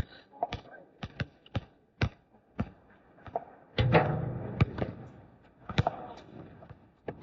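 A basketball bouncing on a hard court, sharp thuds about twice a second, with a louder hit about four seconds in that rings on for a second or so.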